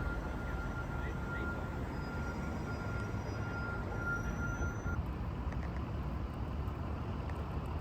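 Steady low rumble of a heavy vehicle's engine amid city street traffic, with a faint thin high tone that stops about five seconds in.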